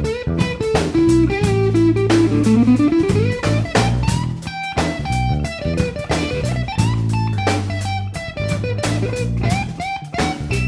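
Music with guitar and a drum kit playing a steady beat.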